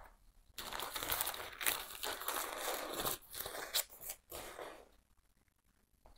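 White packing wrapping in a shipping box rustling and crinkling as a potted plant is pulled out of it, stopping after about four seconds.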